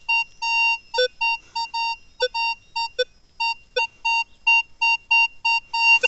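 Minelab Vanquish 540 metal detector beeping at one mid pitch, about four beeps a second, as the coil is swept back and forth over a buried target reading ID 22, with a few short lower tones mixed in. The signal comes from a buried metal nut.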